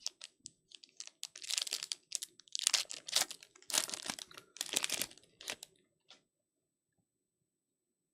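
Foil wrapper of a 2024 Panini Prestige football card pack being torn open and crinkled, in several bursts of rustling over about five seconds, then stopping.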